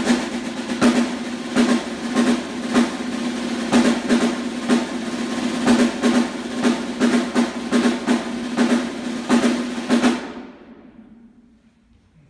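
Snare drum played in a continuous roll, with accented strokes about once a second that come closer together near the end. The roll stops about ten seconds in, and the drum and hall ring out to quiet.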